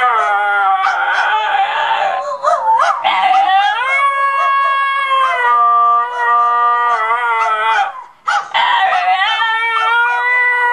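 A basenji and a Mini Aussie howling together in long notes that glide up and down. The howling breaks off for a moment about eight seconds in, then starts again.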